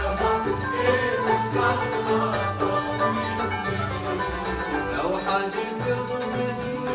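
Live Arabic classical music from a takht ensemble: plucked qanun and oud with bowed violins and cello, and a voice singing over the instruments.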